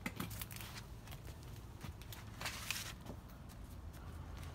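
Faint rustling and a few soft clicks of something being handled, over a low steady hum; a short rustle about two and a half seconds in is the loudest part.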